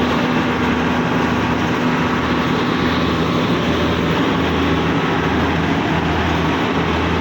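Kubota DC-68G combine harvester's diesel engine running steadily, a constant low hum with no change in speed.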